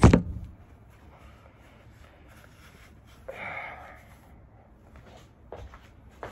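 Phone handled and set down with a loud knock at the start. About three seconds later, a single short breathy sound from a person with their hands over their face, followed by a few faint clicks.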